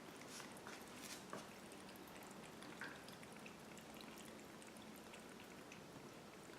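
A faint, steady trickle of running water with scattered small drips and splashes.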